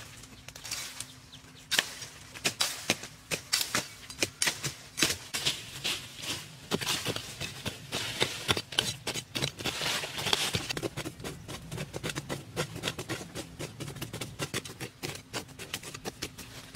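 Hand digging tools striking and scraping into dry, loose soil. A fast, irregular string of sharp chops, several a second.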